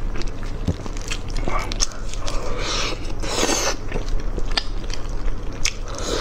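Close-miked mouth sounds of a person biting and chewing meat off the bone, with many short wet clicks and smacks; a longer noisy burst about three seconds in.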